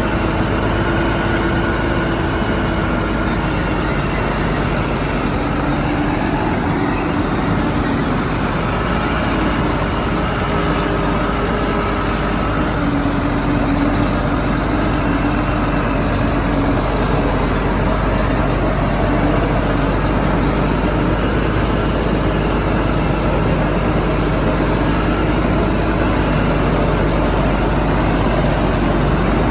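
Shantui bulldozer's diesel engine running steadily, with its pitch drifting up and down a little as it works.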